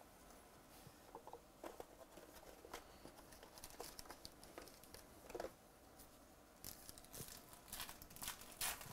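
Faint rustling and light clicks of trading cards and pack wrappers being handled, the small scattered sounds growing busier near the end.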